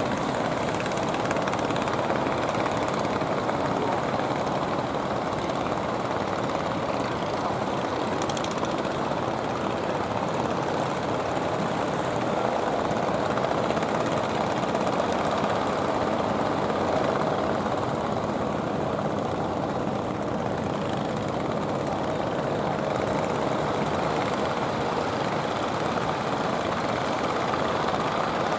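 Engines of several wooden fishing boats running steadily as they motor past, mixed with the wash of the sea.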